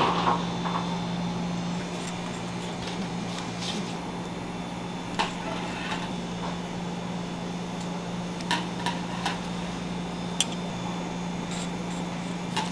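Steady hum of kitchen machinery, with a few faint ticks and taps as a knife and steel ruler are worked over a sheet of sponge cake.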